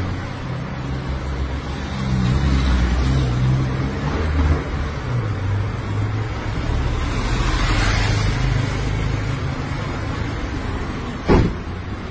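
Car engine running with a steady low hum, and a single sharp bang about a second before the end.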